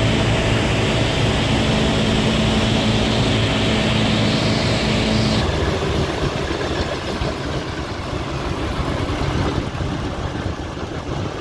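B-17's Wright R-1820 radial piston engines running with a steady drone at a held pitch. About five seconds in, the sound changes to a rougher, uneven rumble.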